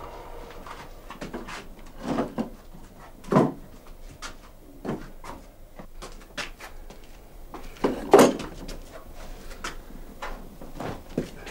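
Clinks, knocks and clunks of hand tools and metal parts being handled and set down on a wooden workbench, with a few louder clunks about two, three and a half and eight seconds in.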